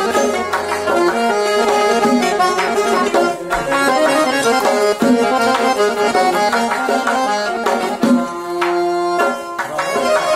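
Solo dutar, a long-necked Uzbek lute, strummed with the fingers in a quick, steady rhythm, playing an instrumental folk melody over a low held note.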